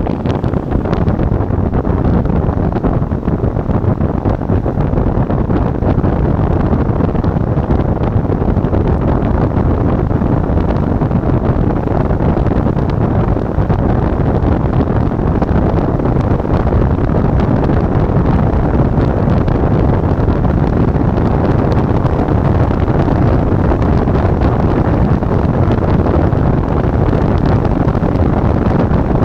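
Steady wind rumble on the microphone of a DJI Action 2 camera mounted on the hood of a moving car, mixed with road and tyre noise.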